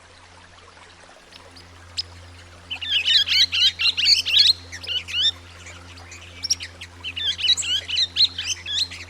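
Swift parrots giving rapid, high-pitched chattering calls in two dense bursts, one about three seconds in and one near seven seconds, over a steady low hum.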